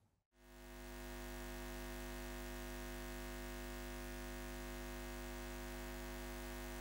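A steady electric-sounding hum drone: a strong low hum with several held tones above it. It fades in within the first second and then holds level and unchanging.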